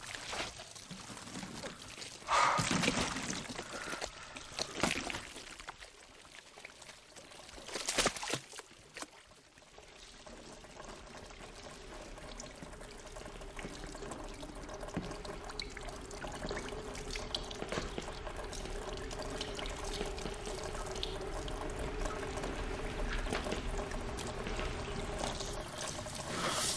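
Thick liquid sludge of acid-dissolved remains pouring and dripping from a broken ceiling onto a debris-strewn floor, with several wet splats in the first eight seconds, then steady trickling under a low drone that slowly grows louder.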